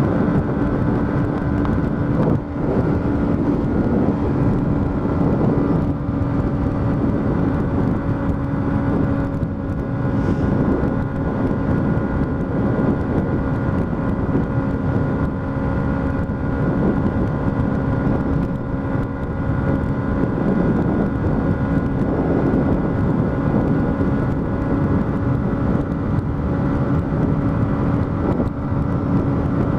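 Yamaha MT-125's single-cylinder four-stroke engine running at a steady cruising speed, a steady hum under the rush of wind and road noise, heard from the rider's helmet camera.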